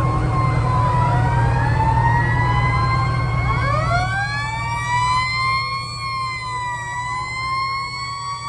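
Several fire truck sirens wailing together as fire engines drive past, their pitches rising and falling over each other; about three and a half seconds in, another siren winds up from low to high and holds. A heavy truck engine rumbles under them, fading after about four seconds.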